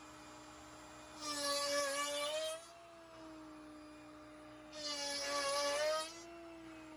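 CNC router spindle spinning a 7/8" box cove bit with a steady high whine, twice plunging into red-oak-veneered hardwood plywood to carve a half-sphere divot. Each cut is a loud rasping burst of a second or so, and the motor's pitch sags slightly under the load.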